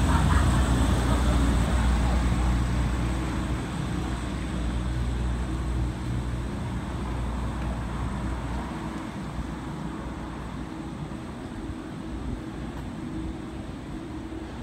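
Street traffic: a steady low rumble of vehicle engines, loudest at the start and easing off over the first several seconds.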